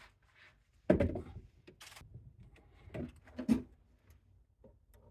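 A cabinet door and its European hinge being pushed and set into place against the spacer: a sharp knock about a second in, a brief scrape, then two clunks.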